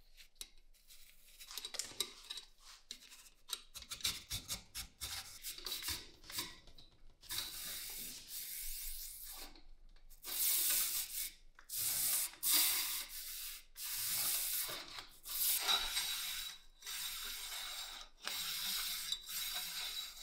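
Abrasive rubbing strokes on the rifle's steel, scrubbing off rust by hand. Short quick strokes at first, then longer strokes of a second or two each with short breaks between them.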